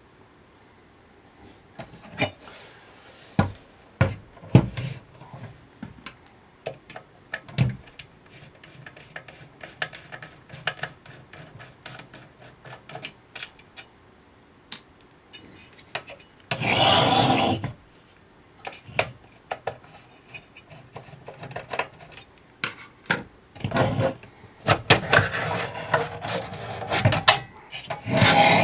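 Hands and tools working on a metal electronics enclosure: scattered clicks and knocks, a scrape lasting about a second partway through, and denser rattling and scraping near the end as the enclosure's cover is worked off.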